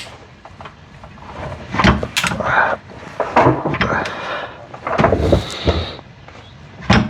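Hand tools knocking and scraping against metal, a few separate clanks and rattles, while loosening the bolt of a BMW E46 rear differential mount.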